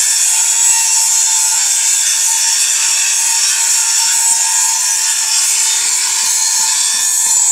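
A power tool running steadily, giving a harsh, hissing grinding noise with a faint steady whine beneath it.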